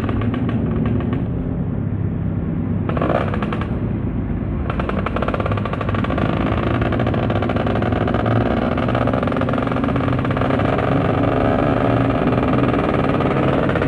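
Motorcycle engine running steadily on the move. A brighter, rapidly pulsing exhaust note joins briefly about three seconds in, and again from about five seconds in.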